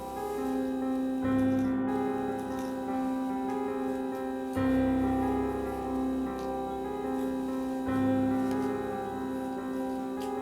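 Background piano music: slow, sustained chords that change about every three seconds.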